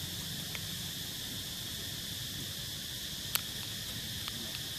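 A steady, high insect drone, with one sharp click a little over three seconds in and a couple of fainter ticks.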